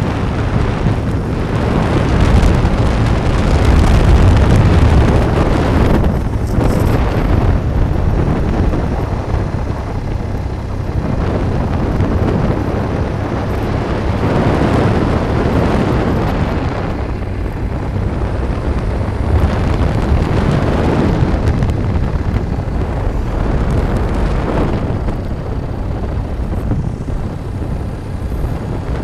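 Wind buffeting the microphone of a camera travelling along a road, a loud low rumble that swells and eases every few seconds.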